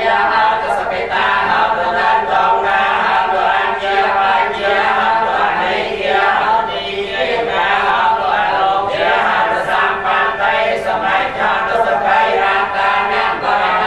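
Many voices chanting Buddhist prayers together in unison, a continuous recitation with no pause.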